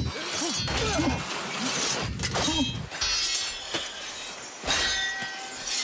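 Steel swords clashing against each other and on plate armour in a film fight: several sharp metallic hits, the loudest near the end, ringing on briefly after it.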